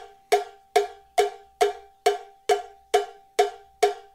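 Cowbell struck on its own in a steady beat, about ten strikes at a little over two a second, each ringing briefly with no other instruments.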